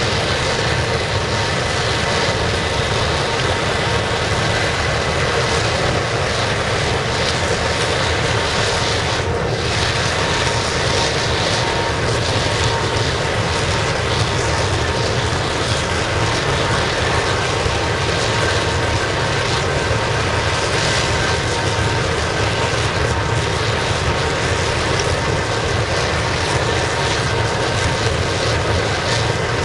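Waste-oil burner firing a scrap-melting furnace: a steady, loud, rushing noise with faint steady tones in it, unchanging throughout.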